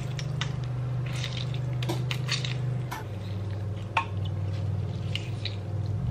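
Lemon half squeezed by hand through a small metal mesh strainer, its juice dripping into a bowl of sauce, with light squishing and scattered soft clicks of the strainer. A steady low hum runs underneath and drops in pitch about three seconds in.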